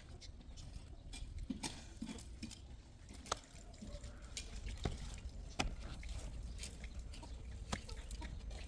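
A few sharp knocks or taps at irregular intervals, over a faint low rumble.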